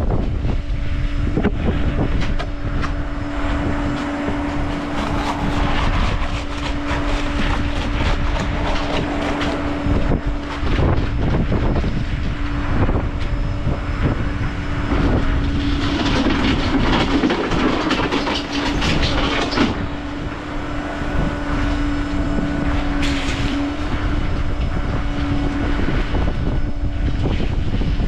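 A motor running steadily with a constant hum, over a low rumble of wind buffeting the microphone.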